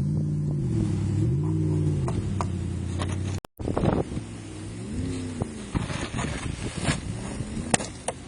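A motor vehicle's engine revving up and back down twice, then once more after a break, with scattered knocks and scrapes.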